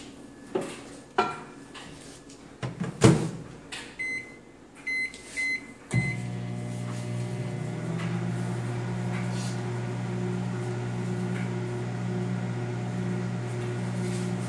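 Countertop microwave oven: clicks and a loud clack as the plate goes in and the door shuts, then a few short keypad beeps. About six seconds in the oven starts running with a steady low hum.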